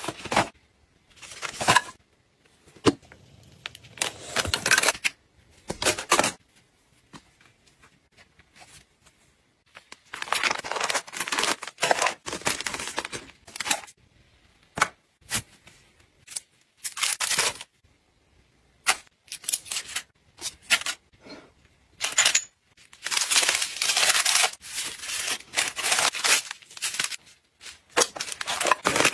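Plastic packaging and zip-lock bags crinkling and rustling as items are handled and packed into a travel organiser bag, in irregular bursts with sharp clicks and taps and short pauses between.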